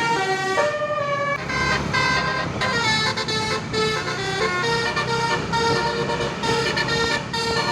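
Basuri telolet bus horn playing a melody of held horn notes that step from pitch to pitch, with a low rumble coming in underneath about a second and a half in.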